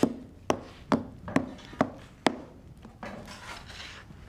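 Hand tool striking at a workbench: six sharp knocks, about two a second, then a softer scraping noise.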